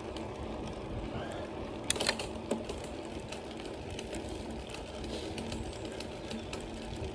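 Bicycle rolling along a tarmac cycle path: a steady, fast mechanical whirr from the moving bike over tyre and air noise, with a few sharp clicks about two seconds in.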